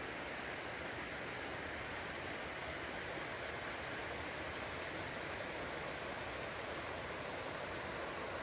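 Creek water running steadily over a small log jam, an even rushing noise.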